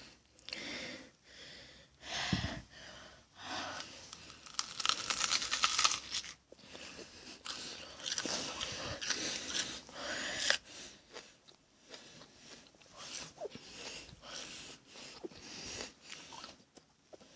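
Close-up crunching and chewing of raw onion, in irregular bursts, loudest about five seconds in and again around nine to ten seconds in.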